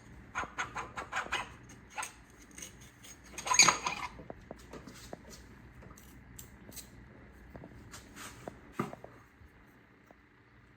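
Light clicks and knocks of tools and metal parts being handled while a holeshot device is fitted to a dirt bike, with one louder, longer sound about three and a half seconds in and another knock near nine seconds.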